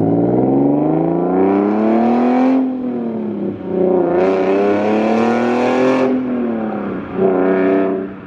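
Nissan 370Z's V6 running through a Motordyne Shockwave aftermarket exhaust under hard acceleration: the engine note climbs in pitch, drops at a gear change about three seconds in, climbs again and drops at another shift about six seconds in, then briefly rises once more near the end.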